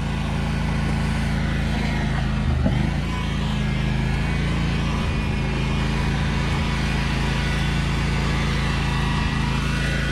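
John Deere riding lawn tractor's small engine running steadily under load as it tows a heavy truck chassis through wet grass, with a short knock about two and a half seconds in.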